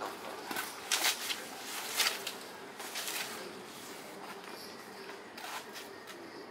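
Shinto priest's haraegushi purification wand swept through the air in a purification rite, its paper streamers rustling in short sharp swishes about a second apart, strongest in the first three seconds.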